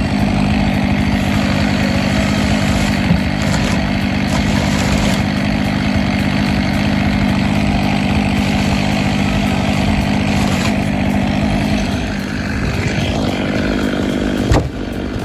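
An engine running steadily with a constant low hum. It eases off slightly about twelve seconds in, and a single sharp knock comes near the end.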